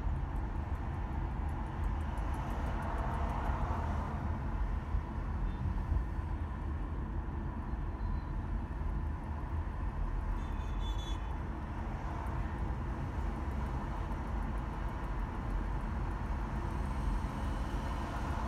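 Steady road and engine rumble of a car driving in city traffic, strongest in the low bass. A short high-pitched sound cuts in about halfway through.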